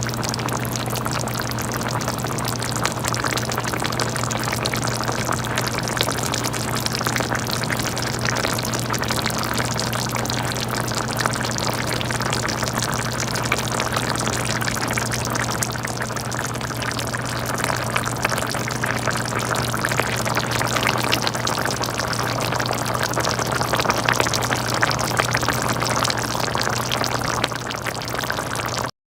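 Chicken simmering in a thick tomato puttanesca sauce: dense, steady bubbling and popping, over a constant low hum. The sound cuts off suddenly near the end.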